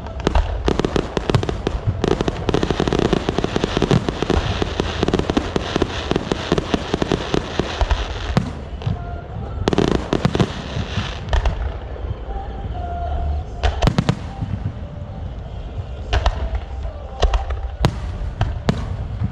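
Firecrackers going off in a dense, rapid crackle for about the first eight seconds, then thinning to scattered single bangs.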